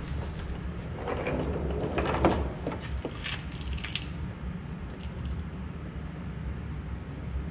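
Metal clanking and rattling, busiest about one to four seconds in, with a few lighter clicks later, over a steady low hum.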